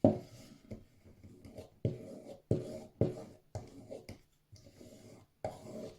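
Multitool knife blade being stropped on a leather strap loaded with polishing compound to hone its edge: about ten short rubbing strokes, unevenly spaced.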